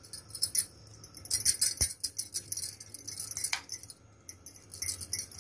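A metal spoon scraping and clinking against a steel bowl and a metal pan as thick tomato sauce is scooped out and spread, in quick runs of small clicks and scrapes with one sharper tap a little under two seconds in.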